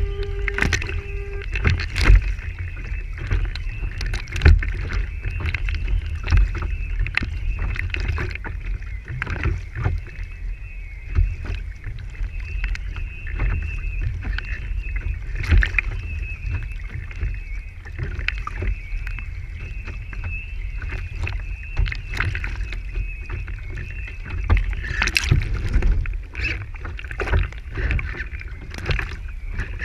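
Small waves slapping and splashing against the hull of a Lintel IOM radio-controlled sailboat under sail, giving frequent irregular knocks, over a steady high hiss and a low wind rumble on the deck-mounted microphone.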